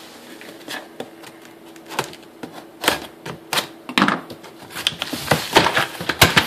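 Cardboard shipping box being opened and its packing handled: a string of sharp clicks, scrapes and knocks, sparse at first and much busier in the second half.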